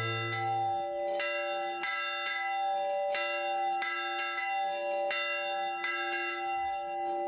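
A single tower bell rung over and over, struck about once or twice a second, each stroke ringing on into the next: the community's morning bell.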